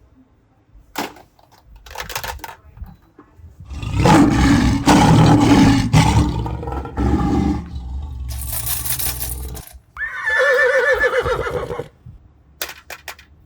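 Animal sound effects: a long rumbling roar in the middle, then a short wavering horse whinny.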